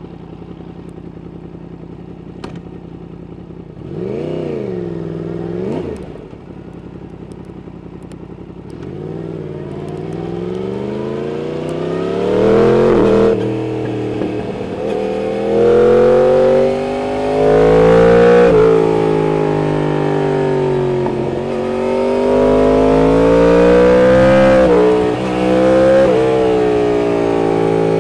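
Yamaha MT-10's 998 cc crossplane inline-four, through an aftermarket Austin Racing exhaust, running steadily at first. Around four seconds in it gives one short throttle blip. It then pulls away, the engine note climbing and dropping back several times as the revs rise and fall.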